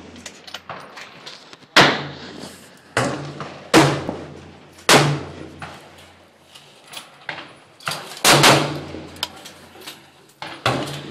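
Rifle shots at irregular intervals, about seven loud reports with fainter ones between, each trailing off in a short echo.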